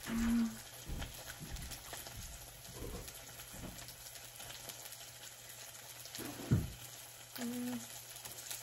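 Close-up mukbang eating sounds: chewing and mouth noises with scattered soft knocks, over the faint sizzle of meat on an electric griddle. Two short hums, one at the start and one near the end, and a single heavier thump about six and a half seconds in.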